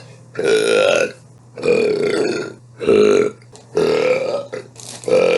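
A woman burping over and over, about five burps edited back to back with short gaps between them, each lasting roughly half a second to a second.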